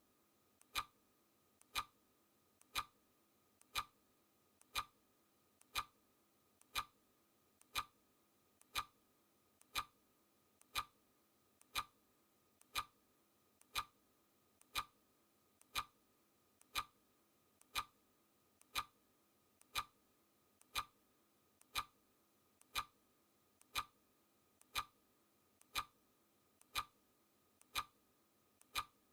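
Clock ticking steadily, one tick a second, each tick a faint click followed at once by a sharper one.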